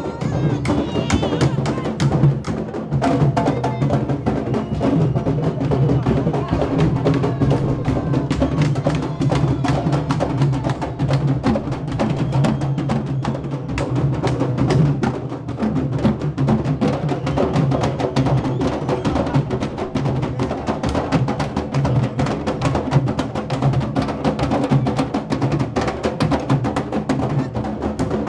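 Live drumming by a group of drummers: many drums beating a dense, fast, unbroken rhythm.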